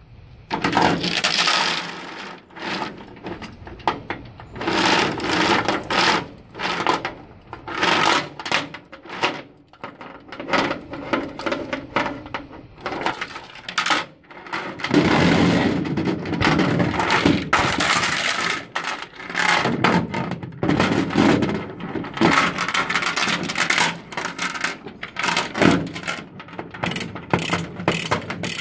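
Grade 70 steel transport chain rattling and clinking as it is handled, its links knocking against the ribbed aluminium trailer deck in irregular bursts. Near the end comes a run of quick, even clicks.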